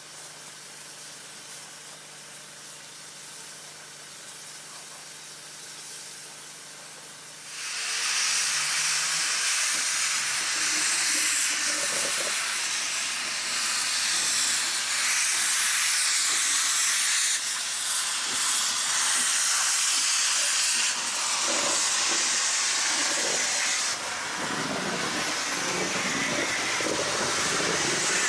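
Steam locomotive standing in steam with a quiet steady hiss and a low hum; about seven seconds in a loud steam hiss takes over as steam blows from around the cylinders and wheels, the cylinder drain cocks open, with faint low chuffs under it.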